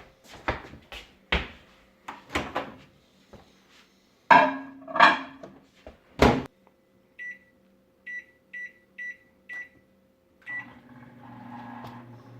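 Microwave oven being loaded and started: knocks and clatter, a hard clunk as the door shuts, six short keypad beeps as the time is entered, then the oven starts running with a steady hum near the end.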